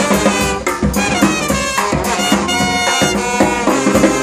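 Brass band music: several horns playing sustained notes over steady drum beats.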